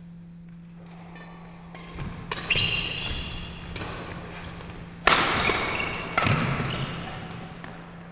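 Badminton rally: racket strikes on a shuttlecock and players' footwork with shoe squeaks on the court floor, echoing in a sports hall. Sharp hits come about two seconds in, the loudest about five seconds in and another just after six, over a steady low hum.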